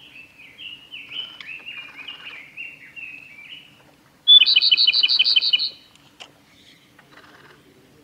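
Male Japanese robin singing: about four seconds in, one loud song of a sharp opening note followed by a fast rattling trill of about nine notes, lasting over a second. Before it comes a quieter run of short falling chirps.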